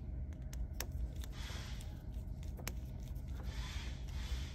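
Small screwdriver turning the screw of a plastic pluggable terminal block to clamp a wire: short scraping spells with a few sharp clicks.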